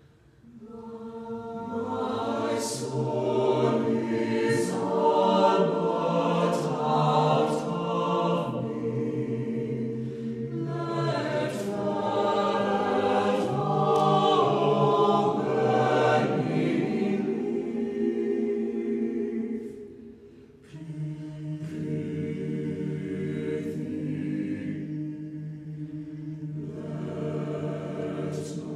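Choir singing sustained chords, the s-sounds of the words standing out as short hisses. The singing swells in from near silence at the start, breaks off briefly for a breath about two-thirds of the way through, then goes on more softly.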